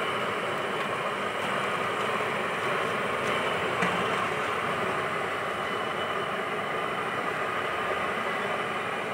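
Sponge dosas sizzling in butter on a hot flat griddle: a steady, even hiss.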